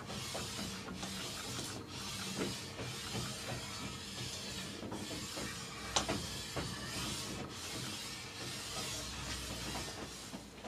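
A steel lapping bar rubbed back and forth over a metal surface plate with chromium oxide abrasive: a steady gritty hiss broken by a few brief pauses. A single sharp knock about six seconds in.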